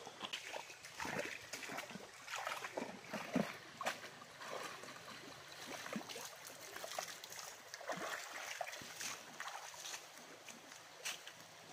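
Irregular water splashing and trickling: a run of short, uneven splashes and drips.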